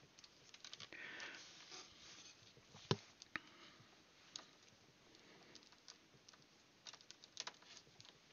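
Near silence with faint scattered clicks and small taps of things being handled on a desk, one sharper click about three seconds in.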